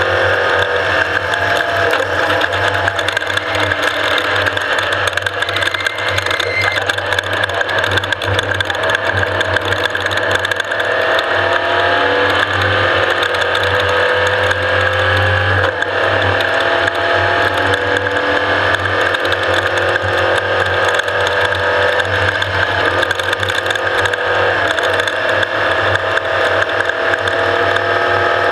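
Off-road race vehicle running hard, its engine and drivetrain giving a whine that rises and falls slowly with speed over a constant mechanical rattle.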